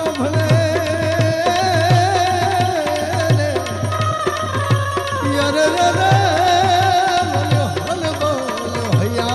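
Instrumental interlude of Gujarati folk-devotional music: tabla keeps a steady beat, about two strokes a second, under an ornamented, wavering melody line.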